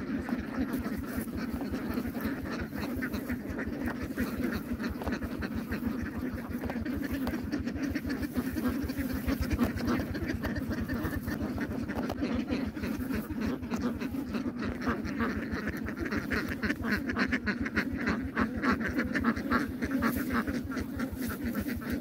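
A flock of ducks quacking without pause, many calls overlapping.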